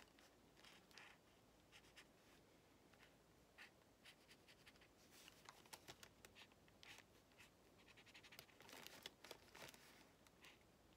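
Faint short strokes of a felt-tip marker drawing on a paper coffee filter, coming irregularly.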